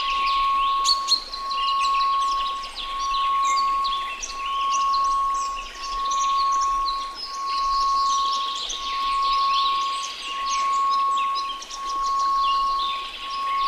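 A steady 1098 Hz tone pulsing, swelling and fading about every second and a half, over a faint hiss of white noise. Birdsong chirps and trills throughout.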